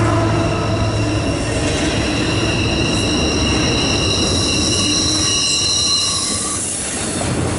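CSX intermodal train's double-stack container well cars rolling past, a steady rumble of steel wheels on rail. From about a second and a half in until near the end, the wheels give a high, ringing squeal at several pitches at once.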